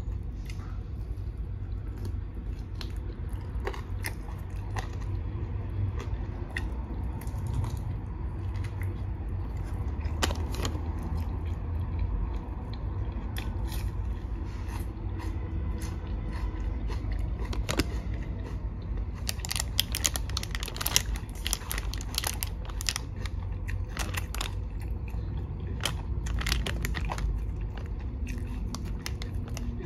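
Close-up eating sounds: biting into and chewing sauce-glazed barbecue chicken wings, with many small wet clicks that come thickest about two-thirds of the way in, over a steady low rumble.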